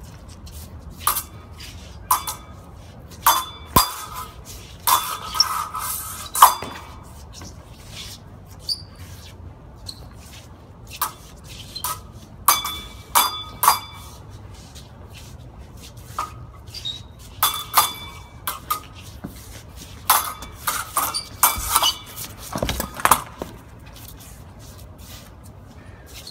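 Thin steel sword blades clashing in sparring: sharp clinks with a brief metallic ring, coming in three flurries of several quick strikes with quieter pauses between exchanges.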